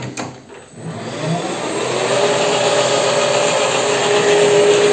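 WEISAN CJM360 metal lathe spindle starting under a variable-frequency drive: the motor and spindle ramp up smoothly with a rising whine from about a second in, then run steadily at speed with an even whine over a mechanical hum.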